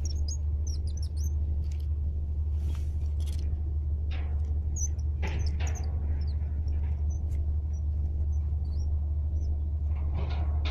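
Small birds chirping in short high calls, a cluster at first and scattered ones after, over a steady low rumble. There are a few brief noises around the middle and near the end.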